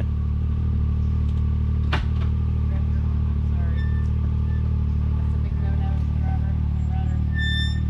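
Side-by-side UTV engine idling steadily close by. There is a sharp click about two seconds in and a short high beep near the end.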